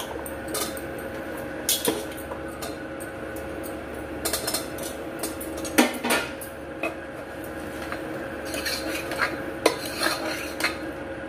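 Steel ladle stirring and scraping raw potato cubes around a pressure cooker as they fry in masala, with irregular metal clinks and knocks, the sharpest about six seconds in. A steady hum runs underneath.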